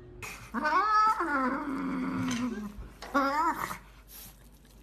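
Hairless Sphynx cat growling while guarding a piece of raw meat: one long growl that rises and then slowly falls in pitch, then a shorter wavering one about three seconds in.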